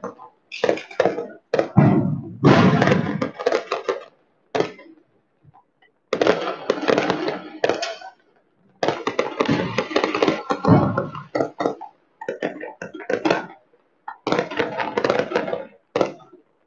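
Fireworks and firecrackers going off: repeated bangs and crackling bursts, one after another, with short gaps between them.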